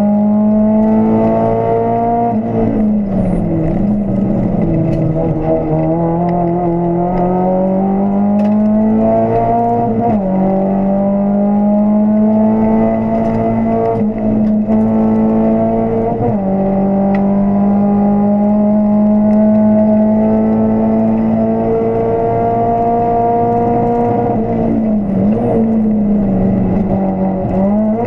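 Volkswagen Golf 2 GTI 16V's four-cylinder engine running hard at high revs, heard from inside the cabin. Several times the engine note drops and climbs back, as the car brakes and changes gear for the bends.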